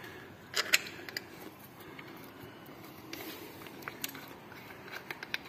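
A few light clicks and knocks as a new water pump and its gasket are handled and seated by hand against a Suzuki M15A engine block, over quiet room tone. There are two clicks about half a second in and several more near the end.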